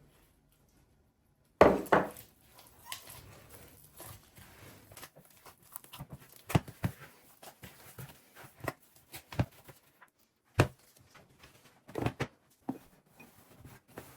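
Household handling sounds: a series of knocks and clatters of objects being set down and moved, loudest in two quick knocks about a second and a half in, followed by scattered lighter clicks.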